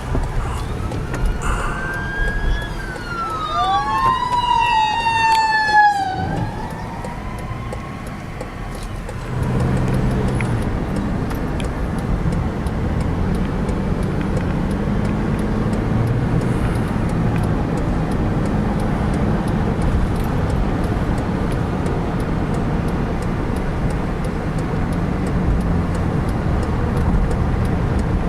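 Emergency vehicle siren wailing, its pitch sweeping up and down in overlapping glides for about five seconds and then stopping. From about nine seconds in, steady engine and road noise of a car driving.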